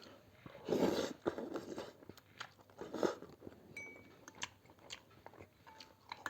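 Close-up eating of chicken thukpa noodle soup: chewing and mouth noises, with two louder noisy bursts about a second in and about three seconds in, and scattered small clicks.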